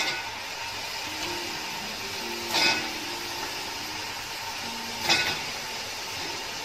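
Boiled, still-wet chicken pieces sizzling as they go into hot oil and fried onions in a steel pot. The sizzle starts suddenly and flares up twice, about two and a half and five seconds in, as more pieces drop in.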